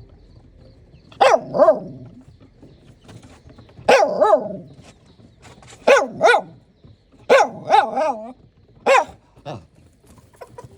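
Dog barking in short runs of two or three barks, with gaps of about a second or two between the runs.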